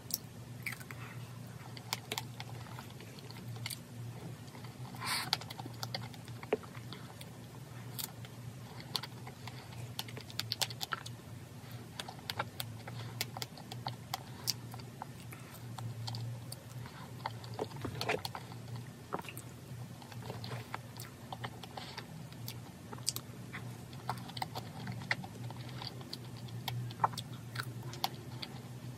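Scattered light clicks and taps of tableware and packaging being handled around a cake, with a brief rustle about five seconds in, over a steady low hum.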